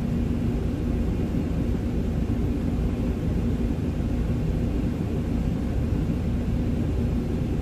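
Freightliner Cascadia semi-truck's diesel engine running at low speed, a steady low rumble with a constant hum, heard from inside the cab.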